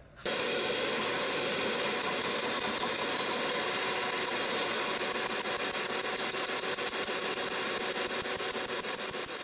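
Cordless drill running steadily with a step bit cutting the hole in a clutch cover one step wider, starting about a quarter second in and stopping at the very end.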